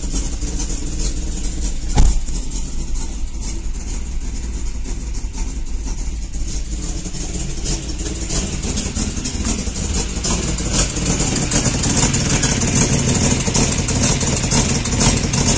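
1991 Toyota 4Runner's 3VZ-E V6 idling after an overhaul and sounding horrible, partly from an exhaust leak at the exhaust studs. A sharp knock about two seconds in; the engine grows louder and brighter over the second half, heard first from inside the cab and then close to the open engine bay.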